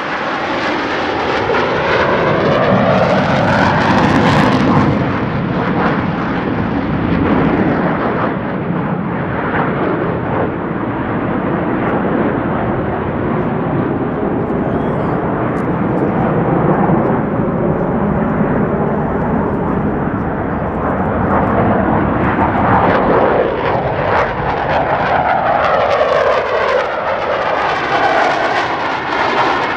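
Blue Angels F/A-18 Super Hornet jet engines, loud and continuous as the jets fly past overhead. The tone sweeps down over the first few seconds and sweeps back up near the end as they pass.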